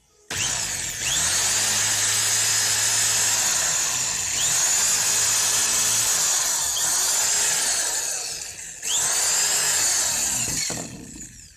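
Electric drill running and drilling into the case of a 6 V rechargeable battery to open it. It stops briefly about nine seconds in, starts again, then winds down near the end.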